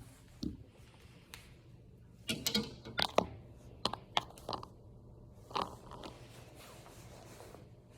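Handling noise of a hook being put on fishing line: a run of small clicks and crinkles about two to five seconds in, and one more near six seconds.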